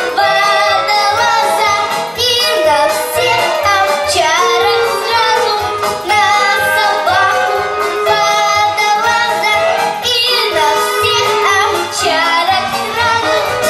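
A young girl singing into a handheld microphone over instrumental accompaniment with a regular bass beat, holding notes with vibrato.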